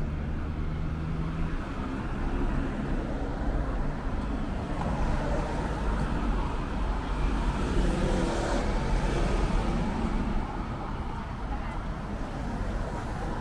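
City street traffic: cars running by, with one vehicle passing close about halfway through.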